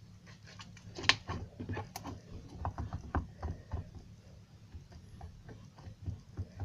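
Homemade slime being handled and worked with the fingers: irregular small sticky clicks and pops.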